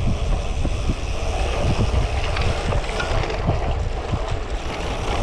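Wind buffeting the microphone while a cyclocross bike on 32 mm slick tyres rolls over a narrow dirt path, a steady heavy rumble with irregular small crackles and ticks from the tyres on grit.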